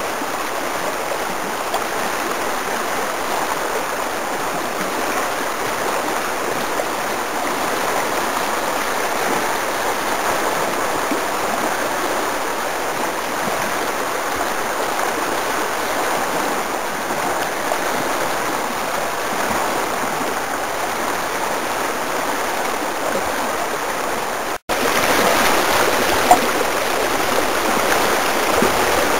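Creek whitewater rushing over a rapid: a steady, even rush of moving water. It cuts out for an instant near the end and comes back a little louder.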